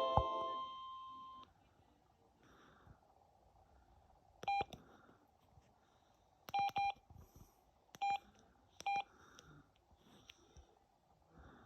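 Samsung SGH-M110 mobile phone keypad beeps: five short beeps, all at the same pitch, two of them in quick succession, as keys are pressed. They follow the tail of a chiming polyphonic ringtone that fades out in the first second or so.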